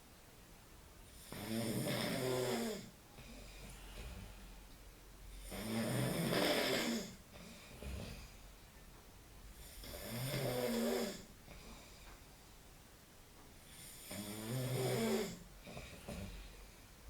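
A man snoring in his sleep: four loud snores, each about a second and a half long, coming roughly every four seconds.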